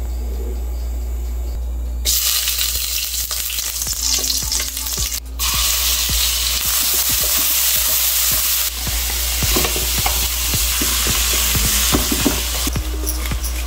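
Food frying in a nonstick wok on a gas stove: a steady sizzle that starts about two seconds in, with a short break a few seconds later. Near the end, shrimp are stirred with a spatula, scraping against the pan.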